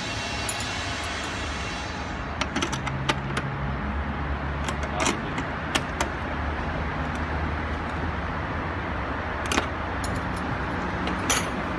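Scattered sharp metallic clinks of a small wrench on a bolt and the hood's strut bracket, a few clustered early and the loudest two near the end, over a steady low background hum.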